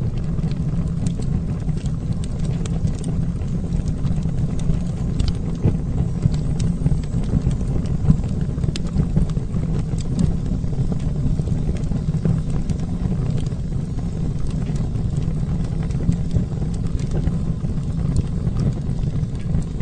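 Wood fire burning in a fireplace: a steady low rumble of flames with irregular sharp crackles and pops scattered throughout.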